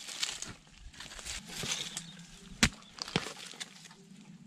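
Scraping and rustling in soil while digging for earthworms, with two sharp knocks about half a second apart a little past the middle.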